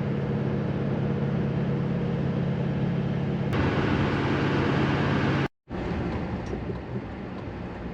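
A vehicle on the move: a steady engine drone with road and tyre noise. About three and a half seconds in, the road hiss brightens and gets louder. Near the middle the sound cuts out abruptly for a moment, then a quieter vehicle drone follows.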